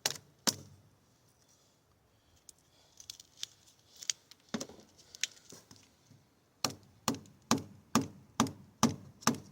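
OTF stiletto knife blade chopping into wood: a few scattered knocks, then a run of about seven sharp chops, roughly two a second, over the last three seconds.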